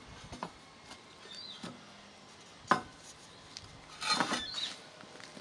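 Steel reo-bar legs and hardwood rails of a beehive stand clinking and knocking together as the stand is set up, with one sharp knock near the middle and a cluster of clanks about four seconds in.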